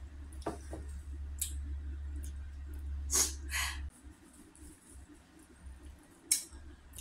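Close-up eating sounds of someone eating a salmon head: a few separate smacks and sucking sounds, the loudest about three seconds in and again near the end. A low steady hum underneath cuts off about four seconds in.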